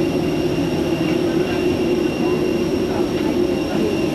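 Steady drone of airliner ground machinery at the boarding door: a low hum with a thin, high, steady whine over it.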